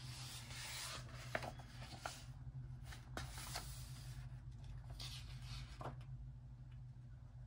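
Paper pages of a coloring book rustling and sliding as a page is turned and smoothed flat by hand. The rustling comes in a few short bursts, faint, with some light ticks between them.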